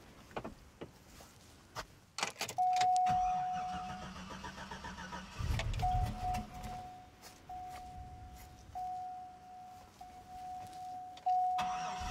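Keys jangling, then the Chevrolet Avalanche's engine cranks over on a new battery and starts, the new battery bringing the dead truck back to life. The dashboard warning chime sounds, first as one long tone, then dinging regularly about once every second and a quarter.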